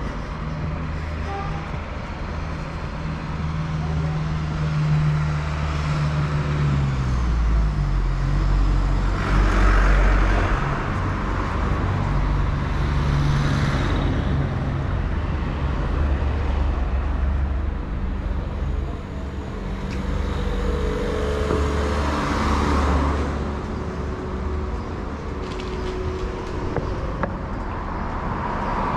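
Street traffic: a steady low engine hum with several cars and heavier vehicles passing, the loudest about ten seconds in.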